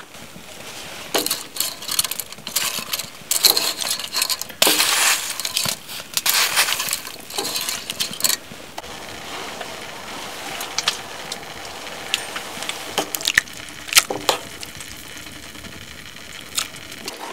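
Tongs clinking and scraping against a metal saucepan while stirring spaghetti, in irregular clinks that are busiest in the first half and become sparse later.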